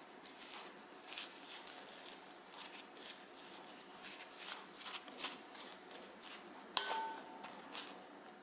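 Soft wet, sticky crackling of seasoned perilla leaves being peeled apart and chili seasoning paste spread over them with a spoon, a scatter of small clicks. Nearly seven seconds in, the spoon clinks once against the glass bowl and rings briefly.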